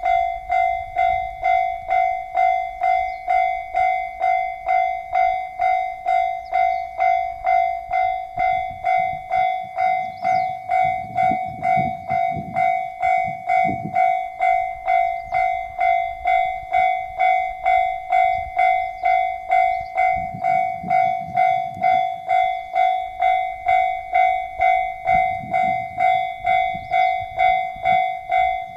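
Railway level crossing warning bell ringing steadily, a little under two strikes a second. A type 1200 diesel railcar passes over the crossing, its engine and wheels rumbling under the bell for several seconds in the middle and again later.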